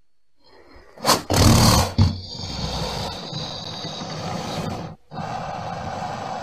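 A crocodile vocalising: after a second of near silence, one loud, harsh call lasting about a second, followed by a quieter steady noise that breaks off briefly near the end.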